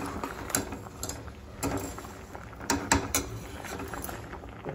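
Metal kitchen utensils clinking and knocking against a cooking pot while the food is checked as it cooks: about six separate knocks over a steady low hum.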